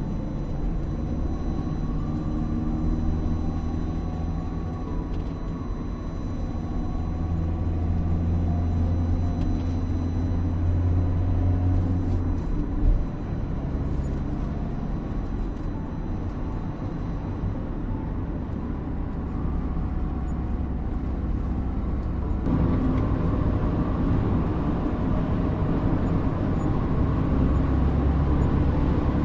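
Car driving at steady speed, with a continuous low rumble of engine and road noise. A single knock, like a wheel going over a bump, comes near the middle, and about three-quarters through the noise suddenly gets louder and brighter.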